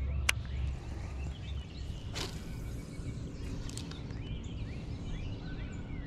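Small birds chirping faintly over a steady low rumble, with one sharp click about a third of a second in and a short rushing noise about two seconds in.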